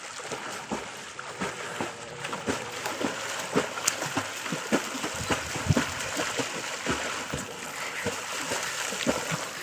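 Swimmers kicking and stroking through pond water: a run of irregular splashes, several a second, over a steady wash of moving water.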